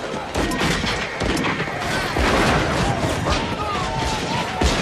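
Western movie action soundtrack: a rapid spread of gunshots and crashes, with horses charging through a street and people shouting in panic, and one heavy bang near the end.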